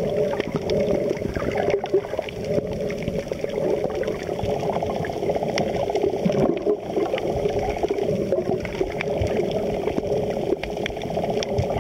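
Underwater sound picked up by a snorkeler's camera: a steady watery gurgling rush with a low hum underneath and scattered small clicks.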